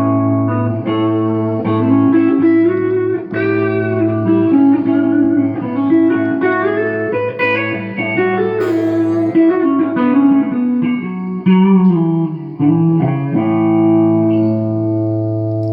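Takamine GX-100 electric guitar with DiMarzio pickups played through a small tube amp head: a run of quick single notes over a held low note, ending on a long ringing chord about thirteen seconds in.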